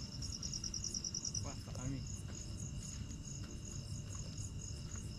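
Crickets chirping steadily, with a fast pulsing trill in the first second and a half.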